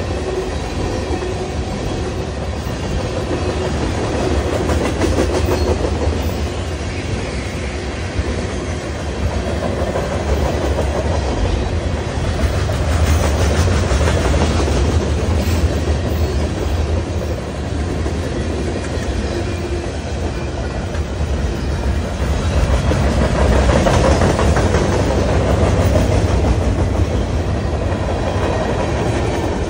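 Norfolk Southern mixed freight train of tank cars, covered hoppers and gondolas rolling past, steel wheels clicking over the rail joints over a steady low rumble. It swells louder twice, around the middle and again near the end.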